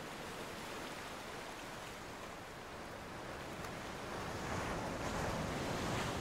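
Ocean surf sound effect: an even wash of waves that swells louder about four seconds in.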